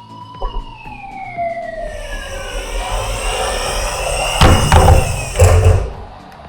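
A fire engine siren wailing, its pitch sliding slowly up and then down, fading out after about two and a half seconds as a rushing noise builds. Two loud bursts with a low rumble come about a second apart near the end, the second the loudest, then the sound drops away.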